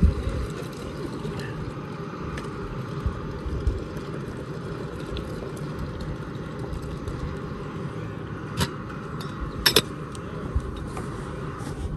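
Steady low outdoor rumble with a faint hiss. Near the end come a sharp metal clink and then a louder double clink as a metal kettle is set down after pouring water into a coffee pot.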